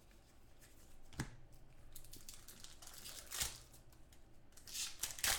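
Plastic wrappers of 2012 SP Authentic football card packs crinkling and tearing as the packs are opened by hand. A sharp click comes about a second in, and louder rustles come around three and a half seconds and near the end.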